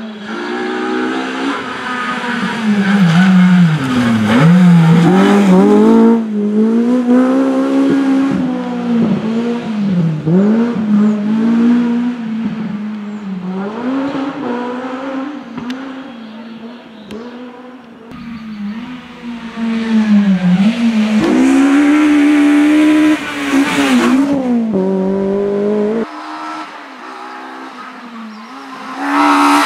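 Honda Civic Type R rally car's engine driven hard on a tarmac rally stage. The revs rise, drop back and climb again many times through gear changes and lifts for corners. The sound jumps abruptly in a few places, about six seconds in and again near the end.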